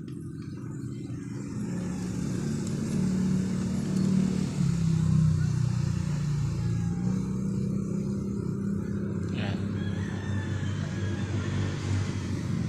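A motor vehicle engine running steadily as a low hum, growing louder over the first few seconds and then holding.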